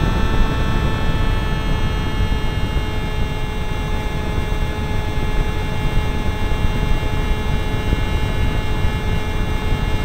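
Zagi v4 RC flying wing's motor and propeller, recorded from its onboard camera: a steady whine of several held tones over heavy wind rush on the microphone.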